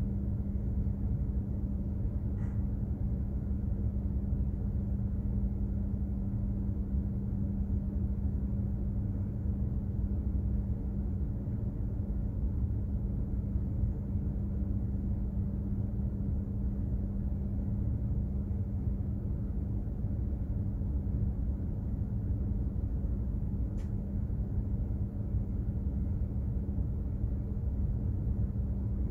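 Steady low rumble of a container ship's machinery heard aboard, with a constant hum. Faint ticks come twice, about two seconds in and again near the end.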